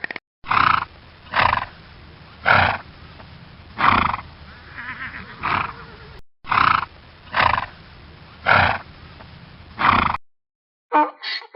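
An animal calling again and again: about nine short, loud calls roughly a second apart, with a brief break about six seconds in.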